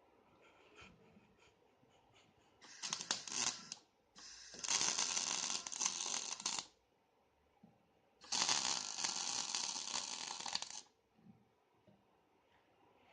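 MIG welding arc from a Tesla Weld MIG/MAG 290 semi-automatic welder, crackling and sizzling in three bursts: a short one of about a second, then two of about two and a half seconds each, with brief pauses between.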